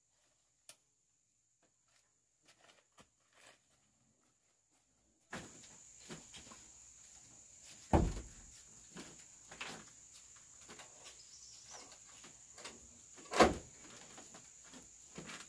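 Near silence with a few faint clicks. About five seconds in, a steady high insect drone starts, with scattered knocks and two loud thuds, the first about eight seconds in and the second near the end.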